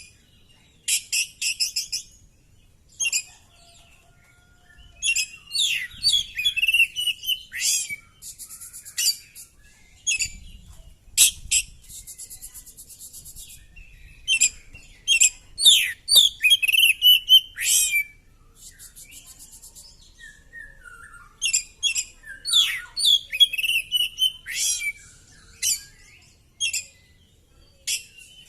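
Oriental magpie-robin singing in loud, varied bursts: sharp sliding whistles and rapid buzzy rattling trills, with brief pauses between phrases.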